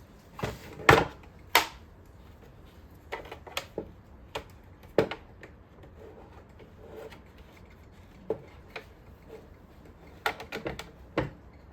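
Scattered sharp clicks and knocks of plastic parts and small tools as a Roomba's casing is worked apart, the loudest about a second in and another cluster near the end.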